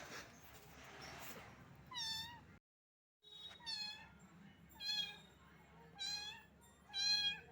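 A small kitten meowing repeatedly: five short, high-pitched meows about a second apart, after a brief hiss in the first second. The sound drops out completely for about half a second just before the second meow.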